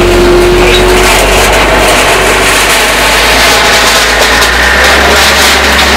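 Wheel loader's diesel engine running under load as its bucket pushes through a shack of corrugated metal sheets and block walls, with a dense crunch and clatter of debris and a steady whine that fades about halfway through.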